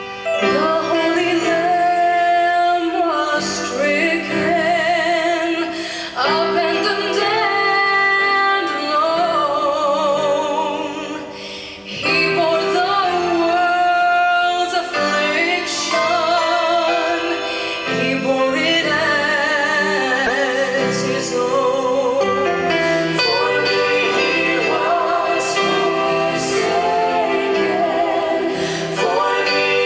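Vocal group singing a sacred song in sustained, wavering notes with vibrato, with a short dip in level about twelve seconds in before the voices come back in.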